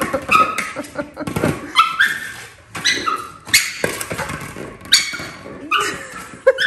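Staffordshire Bull Terrier 'talking' excitedly to her ball: a string of short whines and yips, about one a second, with a few sharp knocks in between.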